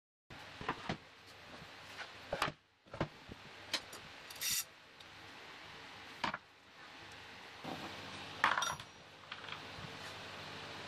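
Metal parts being set down on a board on a wooden workbench: a threaded steel rod and two ball bearings, giving a scatter of short clinks and knocks, the loudest about eight and a half seconds in, over a faint steady hum.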